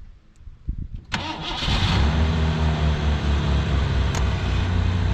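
1987 Ford Thunderbird's engine being started: the starter turns briefly and the engine catches about a second in, then settles into a steady idle.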